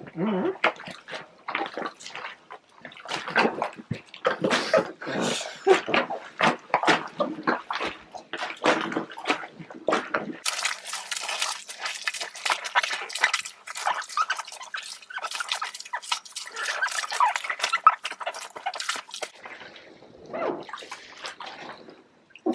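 Bare feet treading grapes in a plastic tub: irregular wet squelching, squishing and sloshing of crushed grapes, juice and stems. About halfway it turns brighter and hissier.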